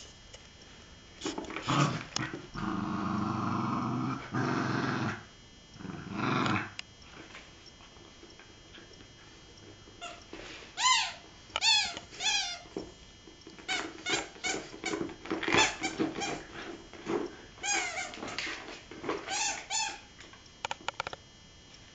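Cairn terrier puppies play-growling over a toy: a low growl held for a few seconds early on, then many short, high squeaks, each falling in pitch, from about halfway through.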